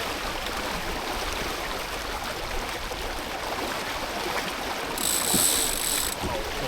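Water rushing steadily along the hull of a sailboat under spinnaker. About five seconds in, a bright hiss lasting about a second rises over it.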